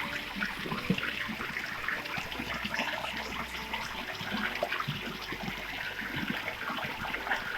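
Water at a waterfall and stream, flowing steadily with a trickling rush and many small irregular splashes.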